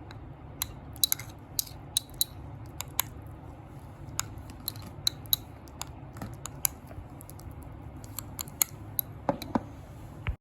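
Slime being squeezed and poked, giving sharp, irregular clicks and pops over a steady low hum. The pops cluster about a second in and again near the end.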